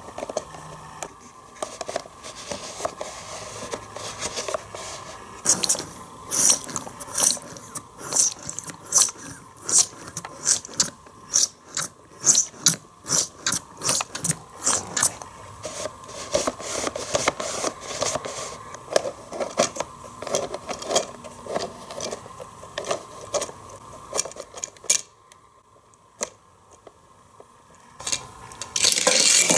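Plastic parts of a Hot Wheels Race & Rinse car wash playset clicking and clattering irregularly, a few sharp clicks a second, as the toy is handled and worked. One louder clatter comes near the end.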